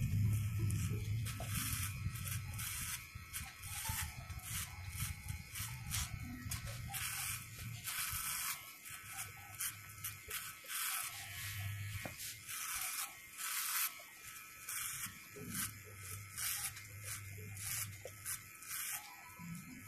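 Corded electric hair clippers buzzing as they cut hair clipper-over-comb. Short, crisp cutting bursts come with each stroke through the hair, repeated unevenly throughout.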